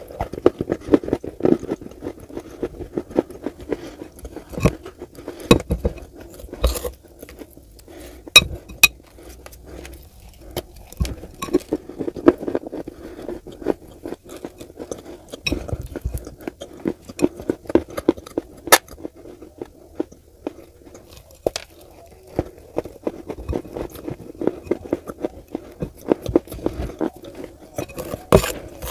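Close-miked mouth sounds of biting and chewing chunks of Turkestan edible clay coated in wet clay paste: dense crisp clicks and crunches with wet smacking. A metal spoon clinks now and then against a glass bowl.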